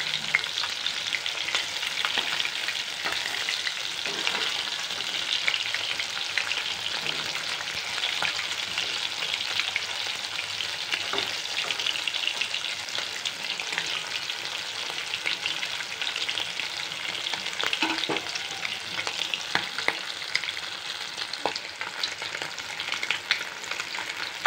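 Rohu fish steaks shallow-frying in hot oil in a kadai: a steady sizzle full of small crackles and spitting pops. Now and then a spatula scrapes and nudges the pieces in the pan.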